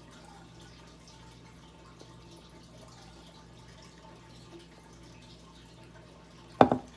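Faint steady low hum with a few small ticks, then about six and a half seconds in a sudden loud short sound.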